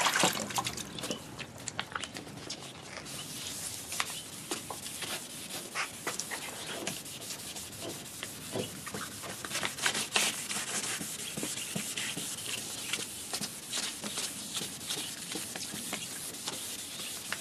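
Hand wet-sanding of a plastic headlight lens with 1500-grit wet/dry sandpaper on a sponge: continuous wet rubbing and scraping strokes as the oxidized plastic is sanded away.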